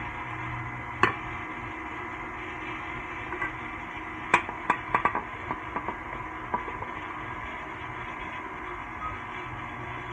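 KitchenAid Classic Plus stand mixer running steadily, its dough hook turning a sticky bread dough in a stainless steel bowl. One sharp knock about a second in, then a quick cluster of knocks and clinks from about four to six and a half seconds in.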